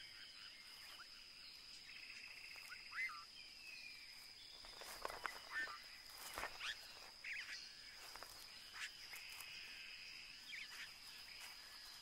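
Faint forest ambience: scattered short bird chirps and a couple of raspy, buzzing calls over a steady high, insect-like whine.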